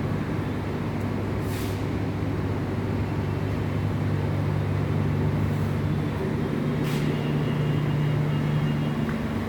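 Steady low machine hum, with a brief hiss twice, about a second and a half in and again about seven seconds in.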